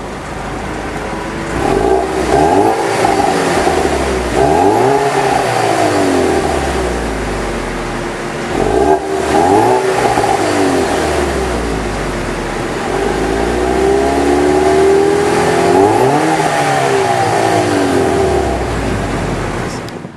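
2015 Ford Mustang EcoBoost Roush Stage 1's 2.3-litre turbocharged four-cylinder idling through its exhaust and blipped four times, the engine note rising and falling each time; the last rev is held the longest.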